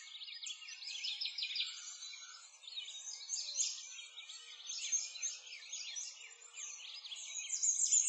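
A chorus of many small birds chirping and twittering together. Quick high chirps overlap without pause.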